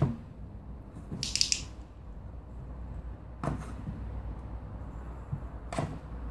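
Three sharp clicks or knocks, one near the start, one about three and a half seconds in and one near the end, with a short high hiss about a second in.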